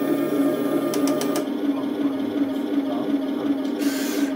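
Radio-controlled model tank's sound unit playing a steady engine-idle hum through its small speaker, with a few quick clicks about a second in and a short hiss near the end.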